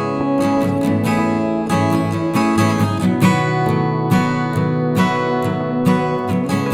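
Background music led by a strummed acoustic guitar, with regular strokes and sustained chords.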